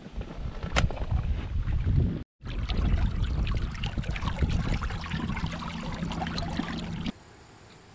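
Wind buffeting the microphone over splashing, lapping water, with scattered small knocks and splashes. It breaks off for a moment about two seconds in and gives way to a faint hiss near the end.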